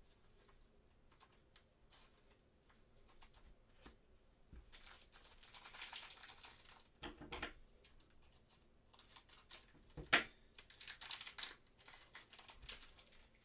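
Plastic wrapper of a trading-card pack being torn open and crinkled, in two spells of crackling, with a sharp snap about ten seconds in.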